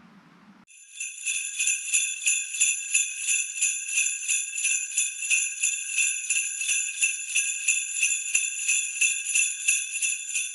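Jingle bells shaken in a steady rhythm, about three shakes a second, starting just under a second in.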